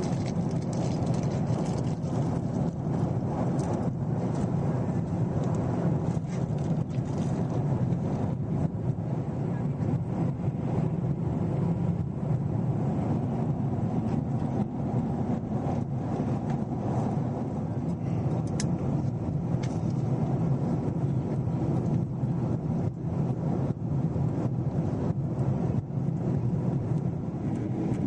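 Cabin noise inside a Boeing 777-300 on approach: the steady low rush of engines and airflow, with frequent small clicks and rattles.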